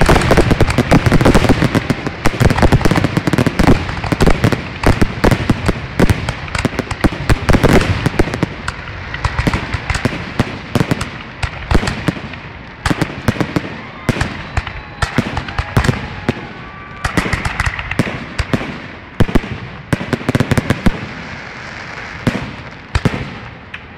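Aerial fireworks grand finale: a rapid barrage of shell bursts and crackling, densest in the first several seconds, then thinning out to scattered booms near the end.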